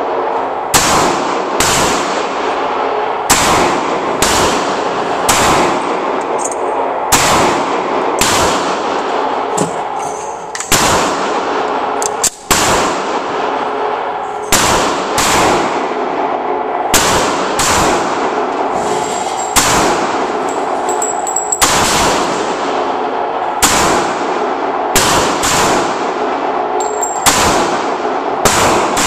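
Handgun shots fired one after another at an indoor range, about one a second with uneven spacing. Each shot rings on in the echo of the concrete lanes.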